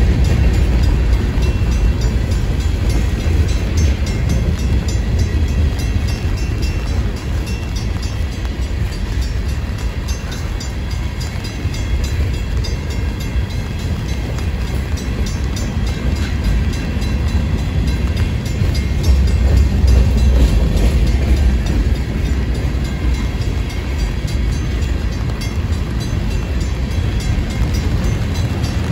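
Freight train of tank cars, covered hoppers and boxcars rolling past close by: a steady, deep rumble of steel wheels on the rails, swelling a little about two-thirds of the way through.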